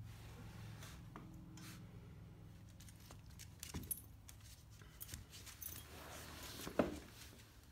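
Homemade button-operated dog food dispenser's small motor humming steadily for about three seconds after its button is pressed, the sign of it dispensing. Scattered light clinks and a few sharp clicks follow, the loudest near the end.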